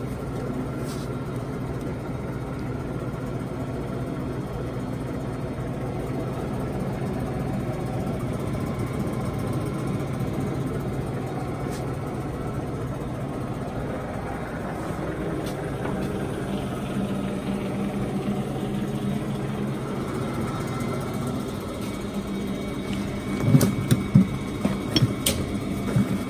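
Large Poreba TPK80 engine lathe running under power, a steady mechanical hum that changes in tone partway through. Near the end come several loud metal clunks.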